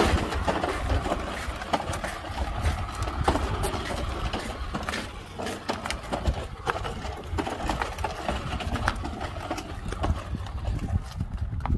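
Walk-behind lawn mower pushed across concrete, its wheels and frame rattling in irregular clicks and clatters over a low rumble; the engine is not running.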